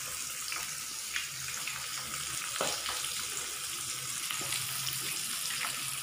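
Marinated fish pieces shallow-frying in hot oil in a pan over a medium flame: a steady sizzle with a few small pops.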